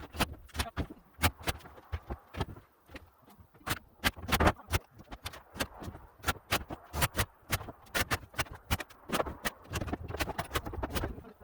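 A quick, irregular series of sharp knocks and taps, several a second, some with a low thud under them.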